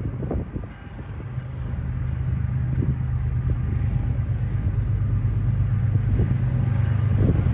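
Diesel locomotives of an approaching freight train, a steady low engine drone that grows steadily louder as the train nears.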